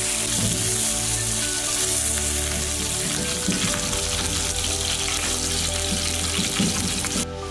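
Pieces of chub frying in shallow oil in a pan, a steady sizzle, with occasional scrapes of metal tongs in the pan as pieces are lifted out. Background music plays underneath.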